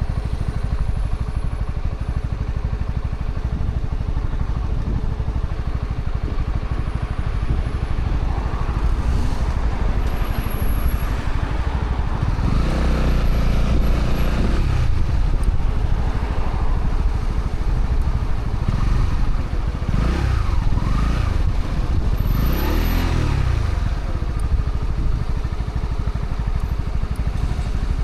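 Honda CB125R's single-cylinder 125 cc engine running through its stock exhaust under way, with wind rush. The engine pitch rises and falls several times in the second half as the revs climb and drop.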